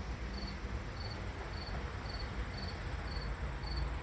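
A cricket chirping steadily, short pulsed chirps about twice a second, over a low steady rumble.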